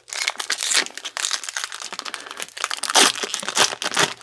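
Foil wrapper of a Topps baseball card pack crinkling and tearing as it is handled and opened, a dense run of crackles and rustles that is loudest about three seconds in.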